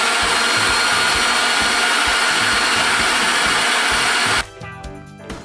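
Electric meat grinder running steadily with a motor whine while grinding fat; it cuts off about four and a half seconds in.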